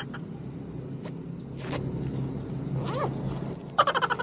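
Zipper on a leather wallet being pulled, a quick run of rapid clicks near the end, after a few soft handling swishes.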